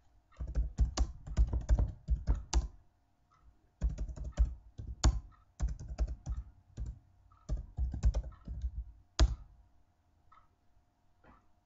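Computer keyboard typing in quick bursts of keystrokes with short pauses between them; the loudest keystroke comes about nine seconds in, and only a few light taps follow.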